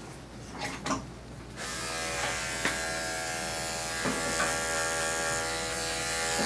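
Electric dog grooming clippers switched on about a second and a half in, then running with a steady buzz as they work through the dog's matted coat.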